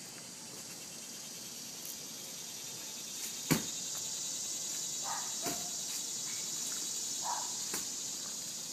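A steady, high insect chorus that swells about three seconds in, with a few sharp knocks, the loudest about three and a half seconds in.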